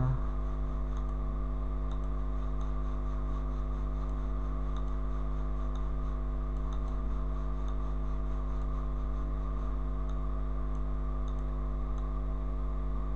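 Steady electrical hum of the recording setup, several fixed tones with a low rumble and hiss beneath, with faint scattered clicks of a computer mouse.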